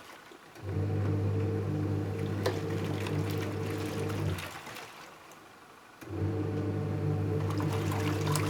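Panasonic twin-tub washing machine's wash motor humming as it churns the load, running for about four seconds, stopping for about two, then starting up again. This stop-and-start is the wash tub's agitation cycle.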